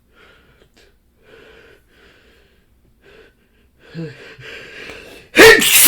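A man's sneeze build-up: short, shaky breaths and hitching gasps that grow stronger. It ends in a loud, explosive sneeze near the end.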